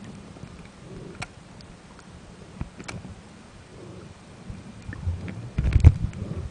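Muffled underwater sound picked up through a camera's waterproof housing: a low rumble with a few sharp clicks, swelling into a louder rumbling burst near the end.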